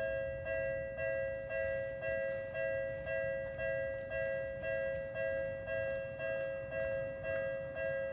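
Japanese railway level crossing's electronic warning bell ringing, a two-tone ding repeating about twice a second, which signals that a train is approaching and the barriers are closing.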